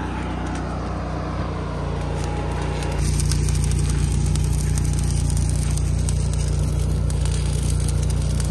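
Stick welding a steel continuous fence panel to a pipe post: the arc's dense steady crackle starts about three seconds in. Under it an engine hums steadily throughout, louder once the welding starts.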